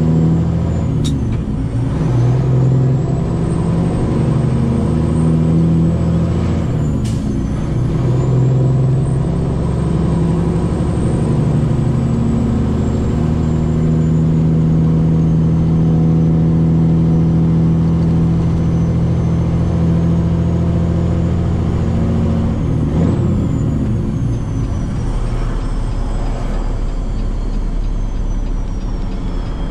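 Cummins ISX15 diesel engine of a Peterbilt 389 running and pulling, its note shifting as the gears change, with a high whine riding above it. About 23 seconds in the engine note drops back and the whine slowly falls away.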